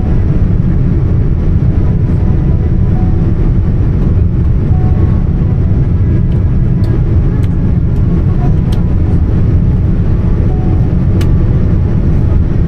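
Steady low rumble of a Boeing 787-10 in flight, engine and airflow noise heard inside the cabin, with a few faint ticks.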